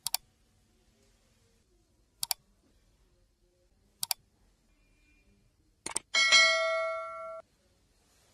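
Sound effects of an animated subscribe button: three crisp mouse clicks, each a quick double tick, about two seconds apart, then a fourth click about six seconds in, followed by a bright notification-bell chime that rings for just over a second and cuts off suddenly.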